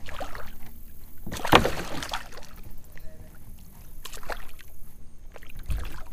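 A hooked largemouth bass splashing and thrashing at the water's surface beside a kayak, with the loudest splash about a second and a half in.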